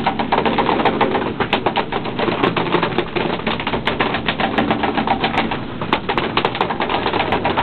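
Rapid, irregular knocking and clattering on a fishing boat's deck, several knocks a second, over a faint low steady hum.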